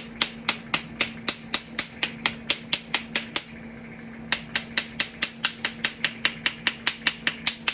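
A spoon tapping on the top of a 3D-printed plastic bath bomb mold, sharp, even taps at about three a second, with a pause of about a second midway.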